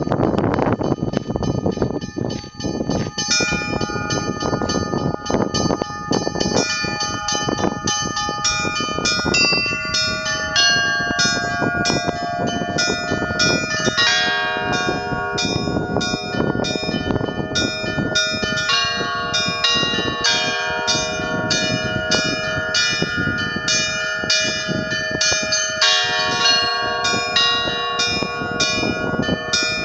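Russian Orthodox church bells of the Kizhi belfry being rung: several bells of different pitches struck in quick succession in a continuous peal, the small high bells chiming rapidly over the longer ring of the larger ones.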